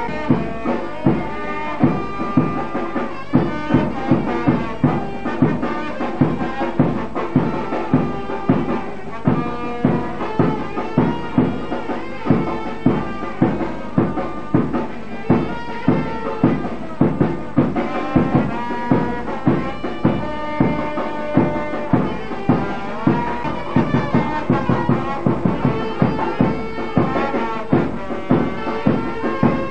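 Instrumental music: a melody over a steady drum beat of about two strokes a second.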